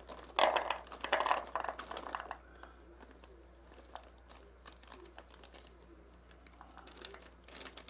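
Plastic packaging crinkling and rustling for about two seconds, then scattered light clicks and taps as small compressed wipe tablets are handled and dropped into a container.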